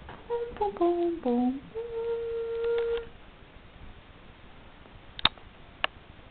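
A woman humming a short wordless tune: a few notes stepping down, then one long held higher note. Two sharp clicks follow about half a second apart near the end.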